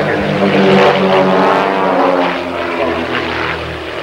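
Propeller engines of a three-plane aerobatic formation droning loudly overhead, with the pitch shifting as the aircraft manoeuvre. The sound eases off after about two and a half seconds.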